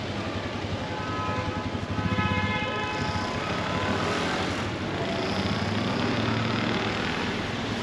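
Street traffic: a motor vehicle passing with a steady low rumble and road noise, and a brief pitched tone with several overtones about one to three seconds in.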